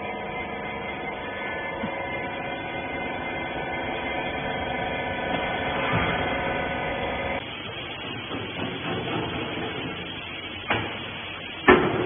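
Rag baler's hydraulic power unit running with a steady humming whine, which stops abruptly about seven seconds in. Fainter machine noise follows, with a click and then a sharp knock near the end.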